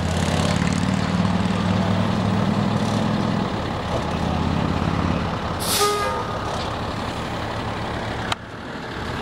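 Dump truck engine running steadily while it pulls the mobile stage trailer into position, easing off after about five seconds. A short hissing burst with a brief tone comes near six seconds in.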